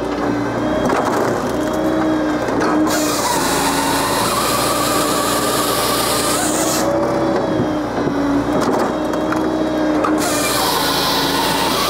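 Japa 395 firewood processor running on a tractor PTO power pack: a steady engine-and-drive drone, with the processor's chainsaw bar cutting through a log twice, once starting about three seconds in and lasting about four seconds, then again near the end.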